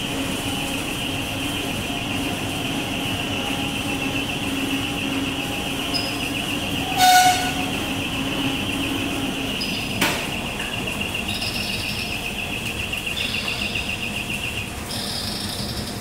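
Overhead grab crane and waste-plant machinery running steadily, with a high whine over a low hum. A loud clank about seven seconds in, a sharp click about three seconds later, and higher tones coming and going near the end.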